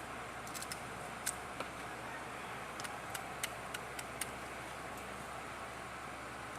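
Light, sharp clicks and taps of small tools and phone parts being handled during a smartphone repair, scattered irregularly over a steady background hiss.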